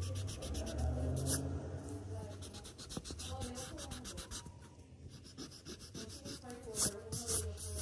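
Eraser scrubbing back and forth on paper in quick strokes, rubbing out pencil lines.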